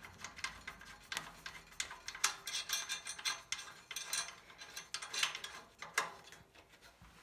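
Irregular metallic clicks and scrapes from a steel mounting bracket being handled against a chassis while its hex screws are threaded in by hand, finger tight.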